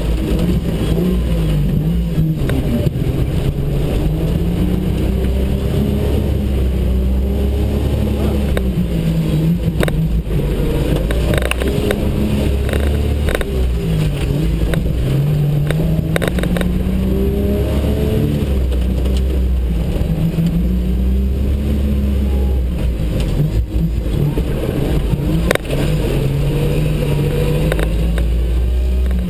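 Jeep Cherokee XJ engine revving up and down again and again, its pitch climbing and falling over a few seconds at a time as it works through a deep mud hole, with a few sharp knocks scattered through.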